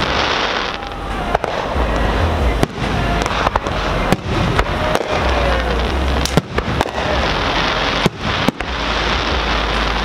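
Aerial firework shells launching and bursting in a display: loud, irregularly spaced bangs, a dozen or so, over a continuous noisy haze.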